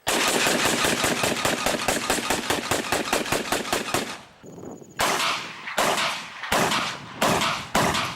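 A long rapid burst of gunfire, about nine shots a second for about four seconds. After a short pause, single loud shots follow at a slower pace, each with a trailing echo.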